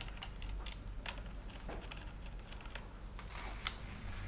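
Faint, scattered clicks and light rattles of a screwdriver and small fasteners being worked on a motorcycle's plastic rear body panels, with one sharper click near the end, over a steady low hum.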